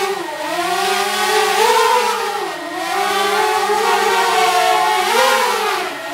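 DJI Mavic Air quadcopter flying on its stock DJI propellers: a steady motor-and-propeller whine of several tones that rises and falls together in pitch as the motors speed up and slow down, dipping briefly three times.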